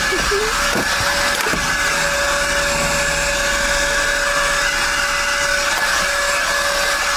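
Leaf blower running steadily with its nozzle blowing into a car's cabin: a constant rush of air with a steady high hum.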